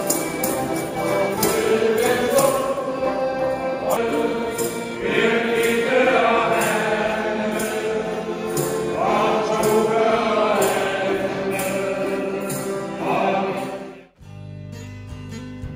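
A male choir of retired sailors sings a traditional Danish sea song with accordion accompaniment and a steady beat. About fourteen seconds in it cuts off sharply and strummed guitar music takes over.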